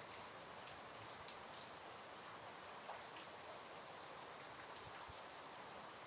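Faint, steady summer rain, with single drops ticking close by here and there.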